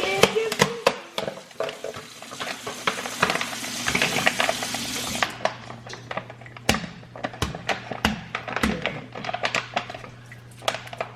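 Kitchen tap running and then shutting off about five seconds in, with a string of sharp clicks and clatter from handling dishes and plastic food packaging.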